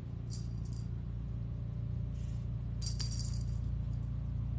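A small bell jingling in three short shakes as a kitten plays with a toy, over a steady low hum.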